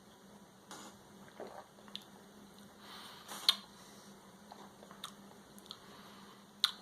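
Soft mouth sounds of someone tasting beer, lips smacking and swallowing, with scattered small clicks; the sharpest click comes about three and a half seconds in and another near the end.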